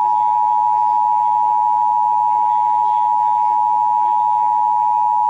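Emergency Alert System attention signal: a loud steady tone near 1 kHz, held without a break. It is the alert that a warning message is about to be read.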